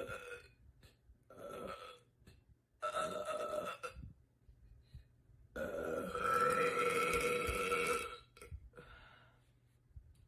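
A woman belching four times in a row. The third belch, about six seconds in, is the loudest and lasts over two seconds; the last one is short and faint.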